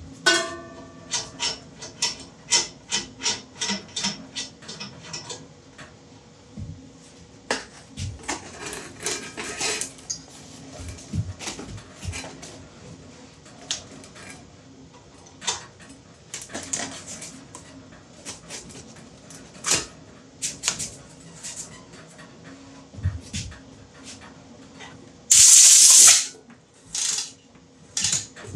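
Clicks and knocks from working on a belt sander, a quick run of them for the first five seconds, then scattered knocks and rubbing. Near the end comes a loud blast of compressed air from an air blow gun, about a second long, with a shorter puff after it.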